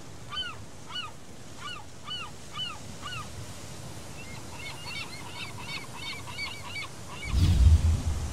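Birds calling over a steady hiss: a run of short rising-and-falling cries about two a second, then a quicker, busier run of calls. Near the end comes a deep low thump, the loudest sound.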